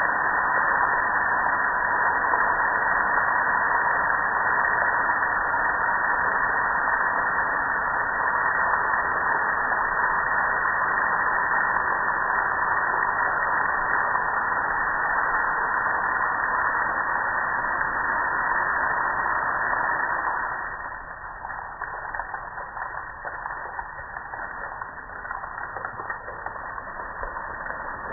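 Water spraying and pouring over a gas grill, a steady loud rushing hiss. About 20 seconds in it drops to a quieter, patchier splashing and dripping.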